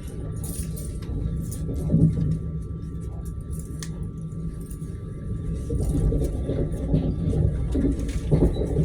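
Commuter electric train running along the line, heard from inside the carriage: a steady low rumble of wheels on the rails, with a faint steady whine and scattered clicks and knocks.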